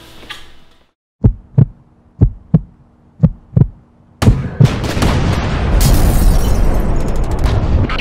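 Intro sound effect: three slow double heartbeats over a low hum, then a loud boom about four seconds in that opens into dense, loud dramatic intro music.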